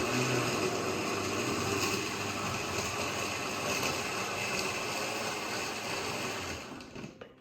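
Countertop blender motor running at speed, pureeing a thick mixture of soaked dried chilies, onion and garlic in a little soaking liquid. It runs steadily with a whine and stops abruptly about seven seconds in.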